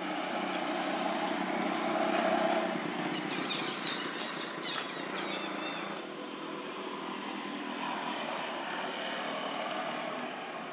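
A steady motor drone, like a passing engine, loudest about two seconds in, with a few brief high squeaks in the middle.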